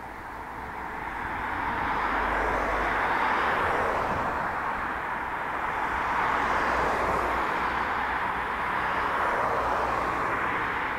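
Twin jet engines of an Airbus A320-family airliner running on the runway: a steady rushing noise that grows louder over the first two seconds, then holds with slight swells.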